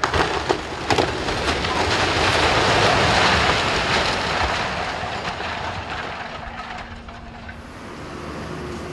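A brick house with a tiled roof collapsing as an excavator pulls it down. A few sharp cracks come in the first second, then a long crashing rumble of falling brick, timber and roof tiles swells for about three seconds and slowly dies away.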